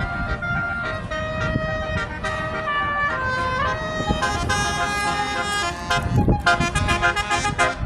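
A bus's basuri 'telolet' multi-tone horn playing a stepped melody of held notes, over the rumble of the bus. About six seconds in it breaks into short, choppy blasts.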